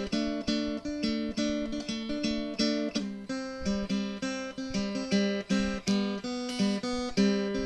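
Background music: acoustic guitar playing plucked and strummed notes at a steady pace.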